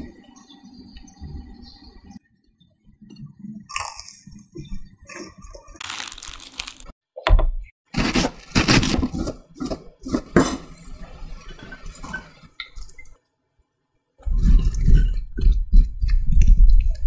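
Kitchen prep sounds: a knife crunching and knocking as it slices crisp cabbage on a wooden cutting board, then squishing as chopped hard-boiled egg and filling are mashed in a dish, louder near the end.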